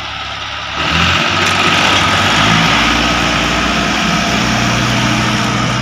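Massey Ferguson 375 tractor's diesel engine running, getting louder about a second in as the tractor moves close past and holding a steady hum.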